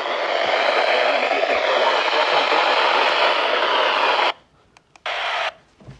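Steady static hiss from a radio receiver that cuts off abruptly about four seconds in, followed by one short burst of the same static about a second later.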